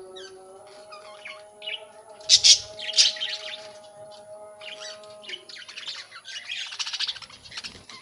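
A flock of budgerigars chirping and chattering, with loud sharp squawks about two to three seconds in and a stretch of fast, dense warbling chatter near the end.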